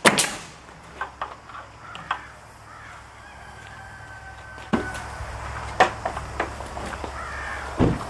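Sharp knocks and taps of wooden boards being handled and fitted against a plank ceiling, the loudest a crack right at the start, with birds calling in the background. A low hum comes in about halfway through.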